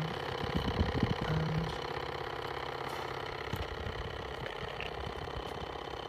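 Washing machine combined drain and recirculation pump from an LG WM14220FD running dry on a mains bench test: a steady electric motor hum as the impeller spins, with a few knocks in the first couple of seconds.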